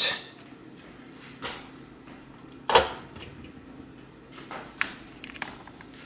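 Battery harness connector being handled and pushed onto the battery pins of a fire alarm control panel: a few light clicks and knocks, the sharpest about three seconds in.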